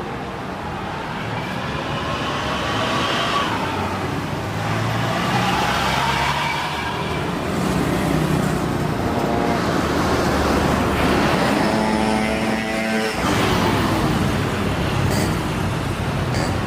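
Engine noise from passing traffic or aircraft: a steady rumble with whining tones that glide slowly in pitch, changing abruptly about thirteen seconds in.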